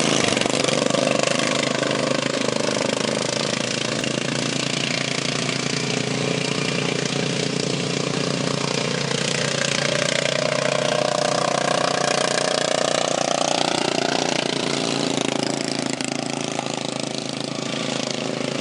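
Racing lawn mower engines running at speed, a steady mechanical drone with pitch rising and falling as the engines rev; one climbs steadily in pitch from about six to fourteen seconds in.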